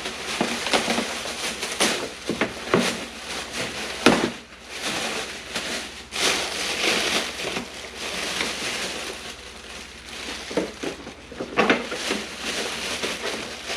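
Packaging handled while a boxed mini split unit is unpacked: plastic wrapping and foam crinkling and rustling, with scattered knocks and clicks.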